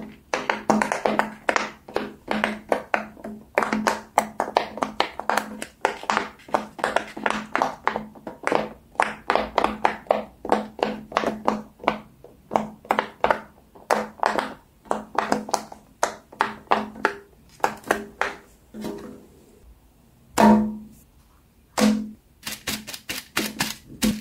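Silicone pop-it fidget toy bubbles being pressed one after another in quick runs, each a short hollow pop with a low ring. The runs thin out to a few single pops about two-thirds of the way through, then pick up again near the end.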